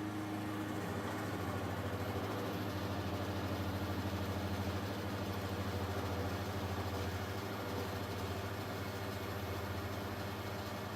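CNC milling machine running steadily with a low hum while cutting aluminium dry, its coolant not working.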